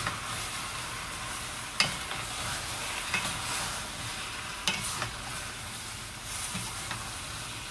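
Chicken and vegetables sizzling steadily in a hot, oil-free stainless steel pot while being stirred with a wooden spoon. The spoon knocks sharply against the pot a few times, most clearly about two seconds in and again near five seconds.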